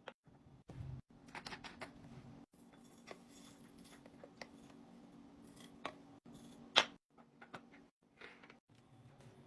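Hands handling restock items and packaging: a string of plastic clicks, taps and rustles, with one sharp loud click about seven seconds in.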